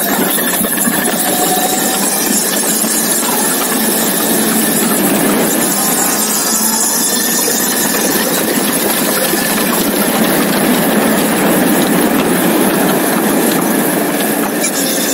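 Motorcycle engine running at road speed, largely covered by a steady hiss of wind and road noise on the low-mounted camera's microphone.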